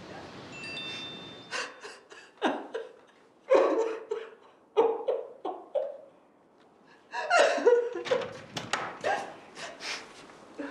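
A woman crying: several short sobbing bursts, then a run of quick, sharp breaths near the end.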